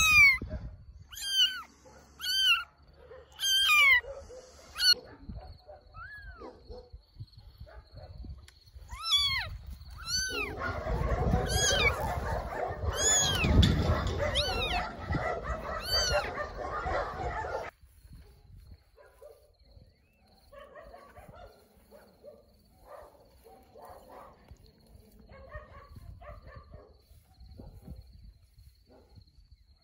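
A newborn kitten meowing loudly and repeatedly, high rising-and-falling cries about once a second, then more sparsely. Midway there is a long, loud rustle of a rain jacket as the kitten is tucked inside it, with the kitten still crying over it. This stops suddenly and gives way to faint rustling steps through tall grass.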